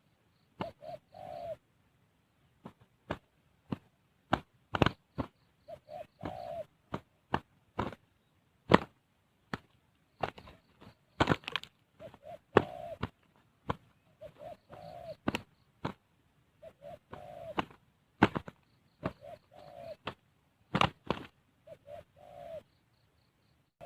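Spotted dove cooing in short phrases that come again every two to three seconds. Many sharp clicks and knocks fall between and over the calls, and these are the loudest sounds.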